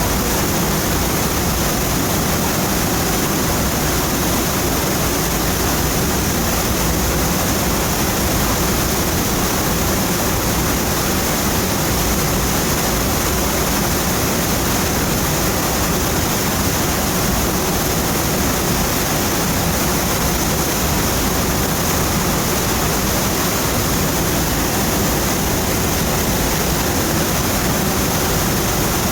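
Donut Falls waterfall: a steady, loud rush of falling water.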